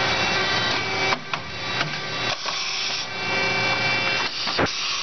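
CNC machining centre running a rotary broaching cycle: a steady machine whine with several even tones, which drops out briefly three times.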